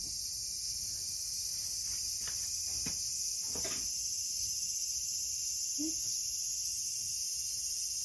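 Steady high-pitched insect chorus, with a few faint knocks between about two and four seconds in.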